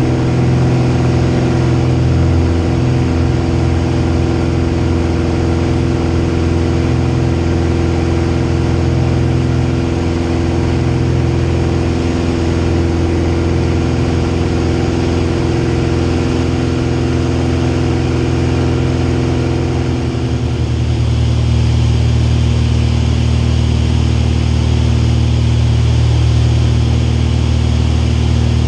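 Single piston engine and propeller of a Van's RV homebuilt light aircraft running steadily through takeoff and climb-out, heard from inside the cockpit. About 20 seconds in, the engine note changes abruptly to a different steady drone.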